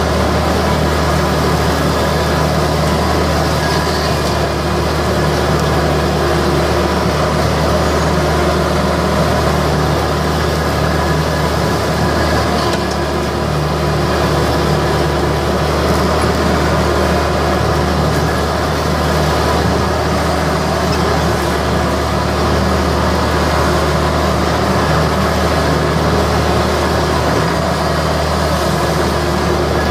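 Ransomes Frontline 728D ride-on mower's three-cylinder Perkins diesel running steadily under load while the mower deck cuts grass, heard loud and close from the driver's seat.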